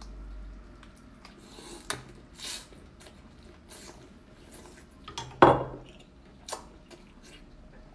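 Close-miked eating sounds as cooked lobster or crayfish meat is sucked from the shell: scattered small clicks and slurps, with one loud sharp sound about five and a half seconds in.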